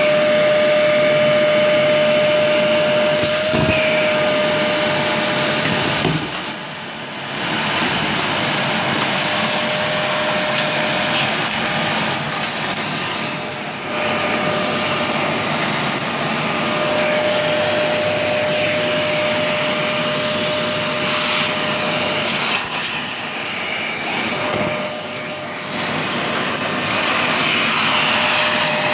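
Parkside PNTS 1500 C4 wet/dry shop vacuum running with a steady whine while sucking up workshop dirt. Its sound dips briefly a few times, and there is a sharp clack a little before the last quarter.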